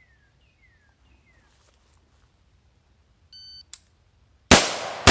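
A shot-timer start beep about three and a half seconds in. About a second later come two rifle shots from an AR-15 carbine, half a second apart, the second at the very end.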